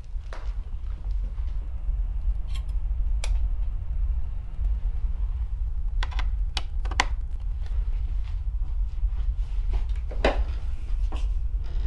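A low steady rumble with irregular sharp clicks and knocks of things being handled at a desk, the sharpest group about six to seven seconds in and a louder knock near the end.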